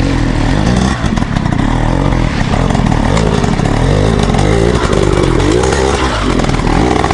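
Enduro dirt bike engine revving up and down in short blips as it picks its way up a rocky climb and passes close by, over a steadier low engine note underneath.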